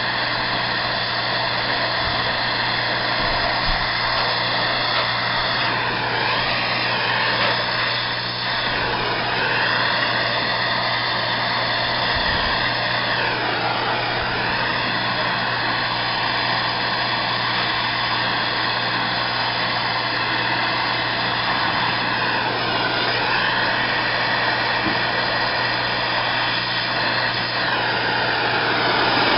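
Oxy-acetylene torch flame hissing steadily while brazing a copper refrigerant line. The tone of the hiss swoops down and back a few times as the torch moves. A steady low hum runs beneath it.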